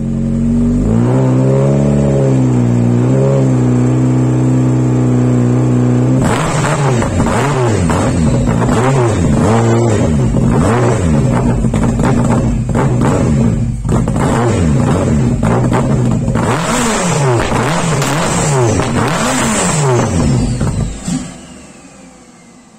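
Turbocharged 1.8-litre AEB 20-valve four-cylinder of a 1997 Audi A4 1.8T, fitted with an ultra-light flywheel and a Garrett GTX3076 turbo, heard at the 3-inch exhaust. It idles with two small blips, then from about six seconds in it is revved again and again, each rev rising and falling quickly. The sound dies away near the end.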